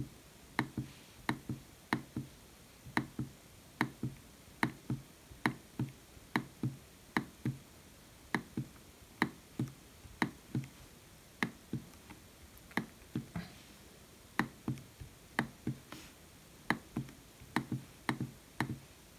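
An HP EliteBook 840 G5 laptop's touchpad being pressed down and released again and again, a string of sharp mechanical clicks, often in close pairs. The pad clicks easily near its bottom edge but gets harder to press toward the top.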